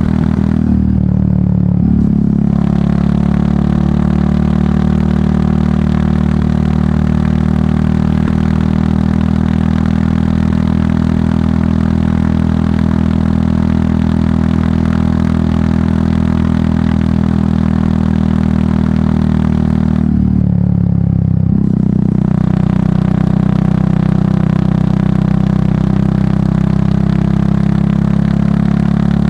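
Royal Enfield Meteor 350's single-cylinder engine running steadily under way through an aftermarket exhaust. The note drops away briefly twice, about a second in and again about twenty seconds in, then picks back up.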